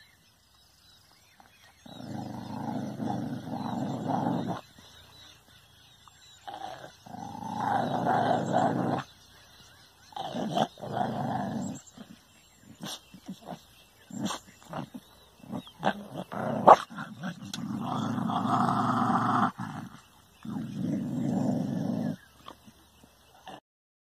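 A dog growling at its own reflection in a mirror, in five long growls of about two seconds each, with a run of short sharp clicks in the middle.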